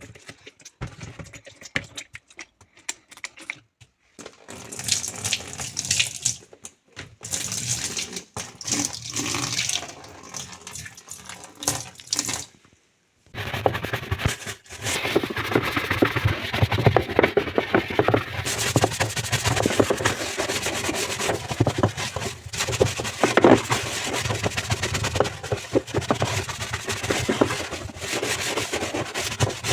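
Water running and splashing, first in short stop-start bursts, then flowing steadily without a break from about halfway through.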